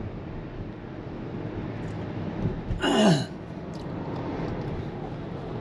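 Steady tyre and road noise heard inside a car cabin at highway speed. About three seconds in, a person makes one short vocal sound that falls in pitch.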